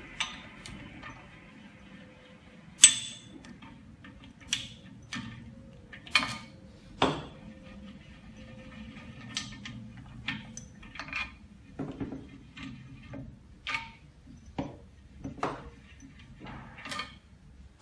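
Irregular clicks and clinks as the orange clamping lever handles on an autoclave bubble remover's door are spun off their threaded studs, the chamber already vented so the door can be opened. The loudest knock comes about three seconds in.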